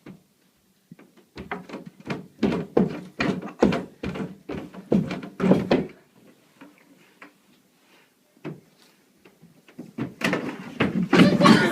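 Irregular thumps and knocks from people messily acting out animals eating, about a dozen in the first half. Then scattered faint clicks, and a dense, loud clatter near the end.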